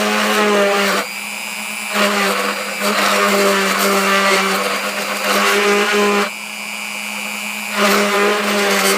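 A CNC machine's spindle cutting aluminum: a steady motor hum, broken by three loud spells of whining, rasping cutting noise as the bit bites into the metal, at the start, a longer one in the middle, and again near the end.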